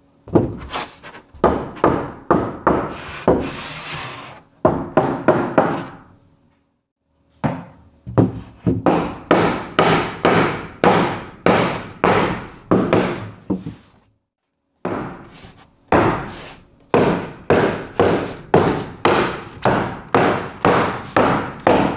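A hammer striking a wooden block held against the edge of a 2-inch foam board insulation panel, about two blows a second in three runs with short pauses between them. It is driving the tight-cut panel into a friction fit between steel studs.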